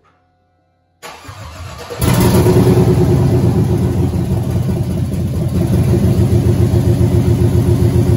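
Rebuilt 6.0-litre LS V8 (LQ9) being cranked for about a second, then catching about two seconds in and running, with no exhaust fitted. It fires on only four cylinders, one bank's plug wires having been left unplugged.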